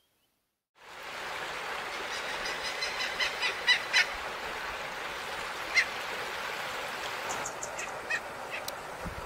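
Bird calls: a run of short, harsh repeated notes that come faster and louder around three to four seconds in, then a single loud note and a few sharper, higher notes later. A steady outdoor hiss sets in abruptly about a second in.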